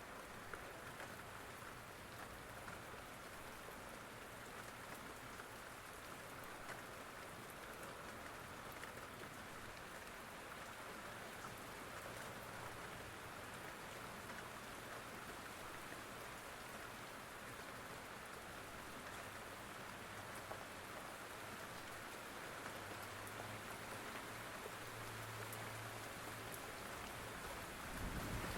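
Steady rain falling, an even continuous patter and hiss, with a brief low rumble near the end.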